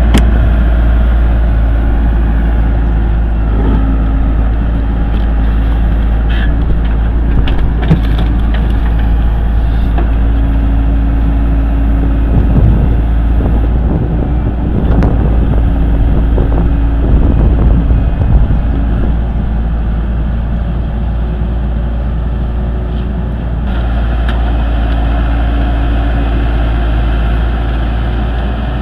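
Heavy diesel machinery running under load with a steady low rumble, with scattered knocks and clanks.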